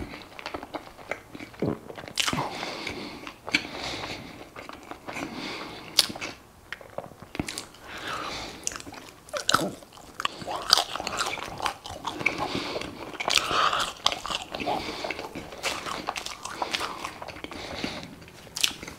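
A person chewing a burger and fries close to a clip-on microphone: wet mouth smacks with irregular sharp clicks and crunches.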